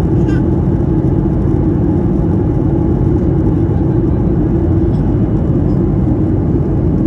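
Jet airliner cabin noise in flight: the steady low drone of the engines and rushing air, heard from a window seat.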